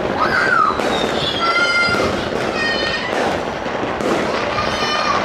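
Fireworks going off continuously across a village, a dense crackling and popping, with several short high whistles rising above it, at about a second in, around three seconds and near the end.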